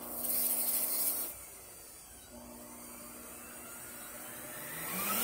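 Roboclean canister vacuum's motor switched on, running loud with a hiss for about a second, then settling lower, and speeding up with a rising whine near the end.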